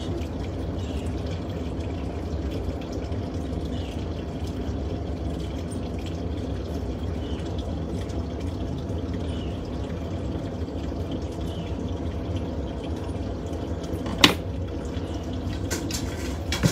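Portable mini glass furnace running with a steady rushing noise and low hum. About 14 seconds in there is one sharp metallic clink, with a few lighter clicks near the end.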